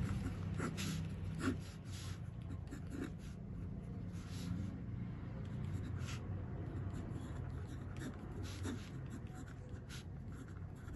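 Pen writing numbers on paper in short, irregular strokes, over a steady low hum.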